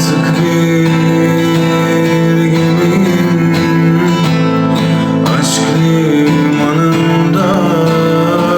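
Instrumental music with guitar and long held notes, the introduction of a song.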